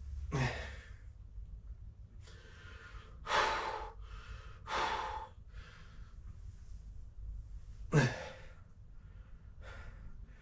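A man breathing hard from exertion during a leg workout, with about five forceful exhales. The sharpest come near the start and about eight seconds in, each with a brief low falling grunt.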